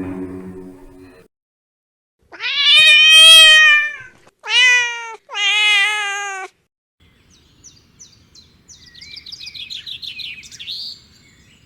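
A cat meowing three times: one long, loud meow, then two shorter ones. Faint, quick, high chirping of a small bird follows.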